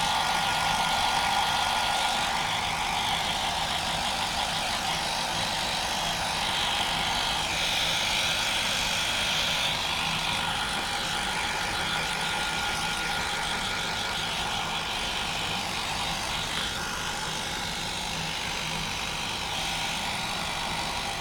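Hand-held hair dryer running steadily on a Maine Coon's coat: a continuous rush of air with a thin steady whine.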